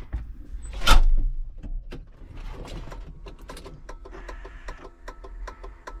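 A door shutting with a heavy thud about a second in, followed by a run of light, fairly regular clicks and knocks.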